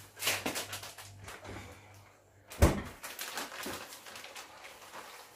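A plastic bag of grated cheese crinkling as it is handled, in short crackly bursts. A single sharp knock about two and a half seconds in is the loudest sound.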